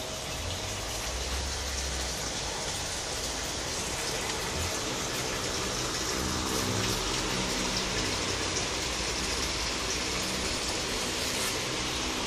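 Steady hiss of water, even throughout, with a faint low hum beneath it.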